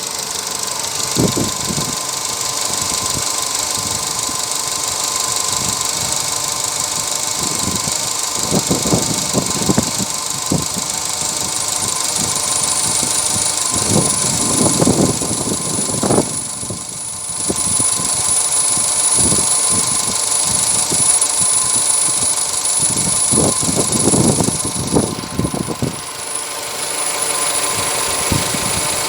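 Ravon R3 engine running, with a steady high whistle from its power steering pump, a sign that the pump is starting to wear.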